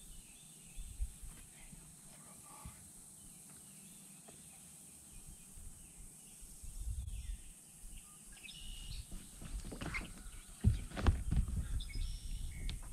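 Quiet open-air ambience with a few faint bird chirps, then knocks and bumps on the aluminium deck of a bass boat as a fish is handled, loudest about ten and a half seconds in.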